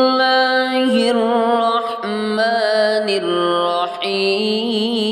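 A single voice chanting Quranic recitation in a slow, melodic tilawah style. It holds long drawn-out notes that step down and up between pitches, with a slight vibrato on some of them.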